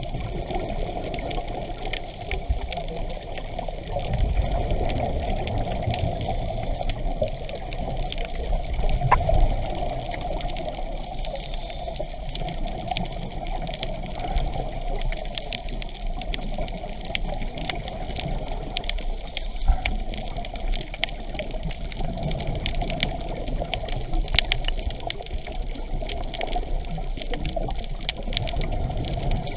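Underwater water noise picked up by a diver's pole-mounted camera, a steady wash with scattered clicks, with the scuba regulator's breathing and exhaled bubbles swelling now and then.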